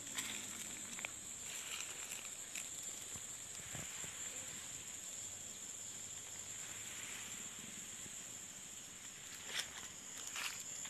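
Steady high-pitched drone of insects in tropical forest, with a few brief knocks, the loudest two near the end.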